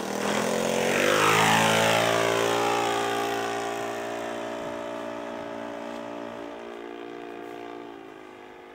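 Engine and propeller of a 1:6-scale radio-controlled Fieseler Fi 156 Storch model flying past close by. The buzz is loud and its pitch drops as the model goes by about a second in. It then becomes a steady drone that fades as the model climbs away.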